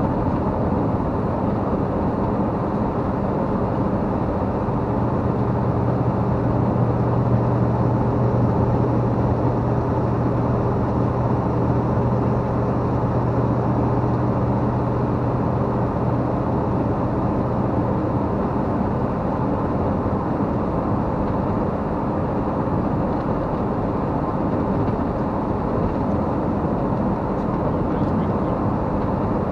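Campervan driving at highway speed: steady engine and road noise, with a low hum that holds from about five seconds in to about eighteen seconds.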